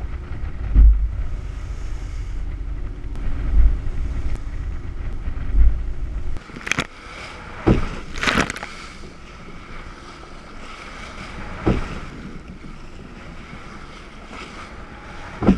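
Sailboat driving through a rough sea. For the first six seconds wind buffets the microphone in low rumbling gusts, then waves slap and splash against the hull in about four sharp hits.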